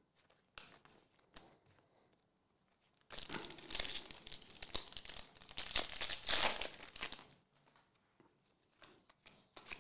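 Foil wrapper of a 2023 Optic UFC hobby trading-card pack being torn open and crinkled, starting about three seconds in and stopping about seven seconds in.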